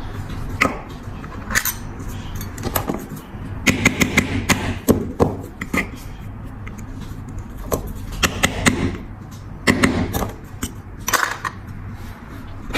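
Small metal tools clicking and tapping on a flip-top metal lighter's hinge as the hinge pin is pushed out, in scattered sharp clicks and short clusters of taps.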